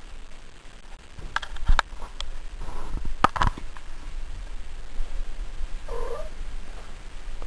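Female domestic cat in heat purring steadily, with short low calls about three seconds in and again about six seconds in. A few sharp clicks in the first four seconds.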